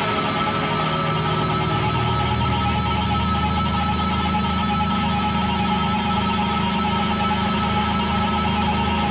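Sustained amplifier feedback from a bass guitar left leaning against a stack of Marshall amps: a steady drone of several held tones, with the low tones swelling about two seconds in.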